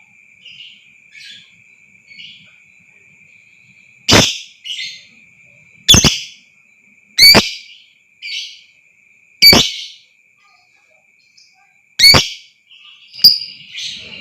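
Lovebird giving loud, sharp, shrill calls, six of them spaced one to two seconds apart, most followed by a softer call, over a steady high-pitched tone.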